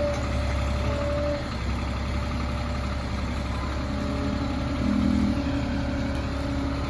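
Truck-mounted forklift's engine running steadily at low speed while it carries a pallet of concrete blocks, with a steady whine that stops about a second and a half in and the engine note rising a little around five seconds in.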